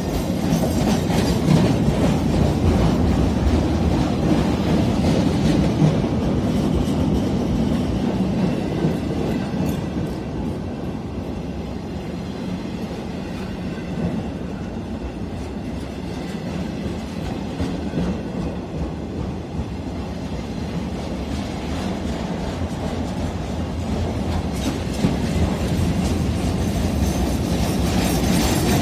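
A CSX freight train's cars rolling past at close range: a steady low rumble of steel wheels on rail, a little quieter in the middle and louder again near the end.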